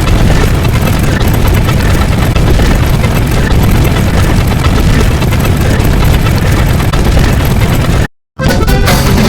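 Loud, heavily distorted sound effect: a dense low rumble with harsh noise over it, cutting out for a moment near the end and then starting again.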